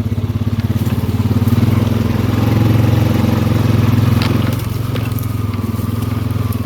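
ATV (four-wheeler) engine running under way, steady and loud, pushing a little harder for a few seconds and then easing back about four and a half seconds in.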